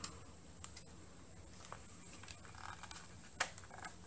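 A few faint clicks and knocks from a tablet being handled in a spring-loaded plastic tablet holder, the sharpest about three and a half seconds in, over a quiet room.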